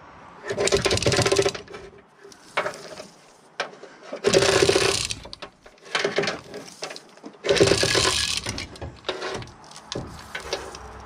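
Hand-operated chain block being pulled to lift an engine: the chain rattles and the hoist clicks in three runs of about a second each, a few seconds apart, as it takes up the weight.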